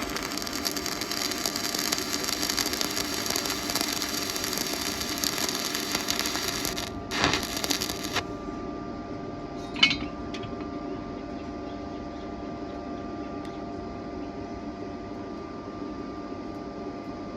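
Welding arc crackling and hissing steadily for about eight seconds, with a brief break near seven seconds, then cutting off. After that a steady machine hum remains, with a sharp click near ten seconds.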